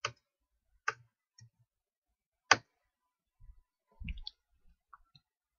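A few separate computer keyboard key clicks, the loudest about two and a half seconds in, then a softer shuffle near the end.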